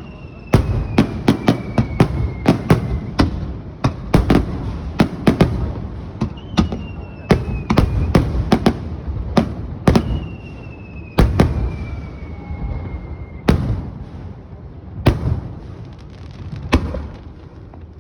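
Fireworks display: aerial shells bursting in quick, irregular volleys of sharp bangs with rumbling echoes, thinning out in the last few seconds. A faint whistle that falls in pitch sounds three times among the bangs.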